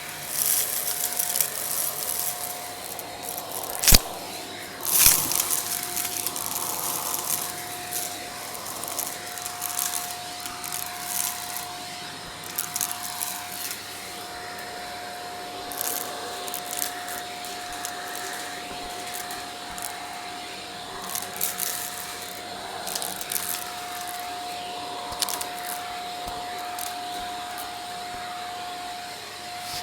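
Vacuum cleaner with a brush attachment working over stairs: a steady motor whine under hiss, with short crackles as debris is sucked up, and two sharp knocks about four and five seconds in.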